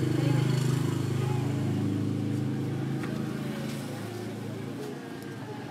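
Low engine hum of a motor vehicle, loudest just after the start and slowly fading over the following seconds as it passes. Faint rustling and light ticks of clothes being handled sit over it.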